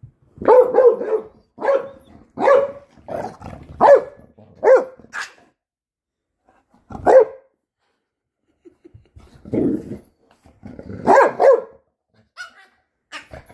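Pit bull barking in play: a quick string of short barks over the first five seconds, then single barks about seven and nine and a half seconds in, and another cluster around eleven seconds.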